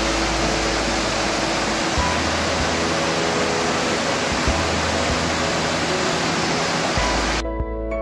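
Rushing water of a waterfall cascading over rock, loud and steady, with soft background music beneath it. Near the end the water sound cuts off suddenly and only the music remains.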